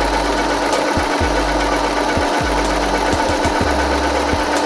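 Small portable electric sewing machine running steadily, driven by its foot pedal, its needle stitching through fabric.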